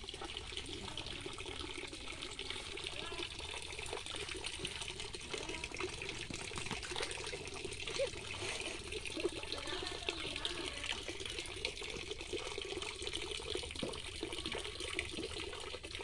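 Steady trickle and splash of water running into a shallow concrete channel, a continuous hiss dotted with small splashes.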